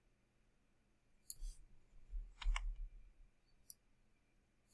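A few faint clicks of a computer mouse and keyboard, about four of them spaced out, starting about a second and a half in.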